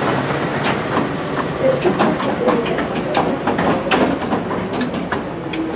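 Carriages of a trackless tourist road train rolling past close by over cobblestones, with irregular rattling and knocking over a low steady rumble.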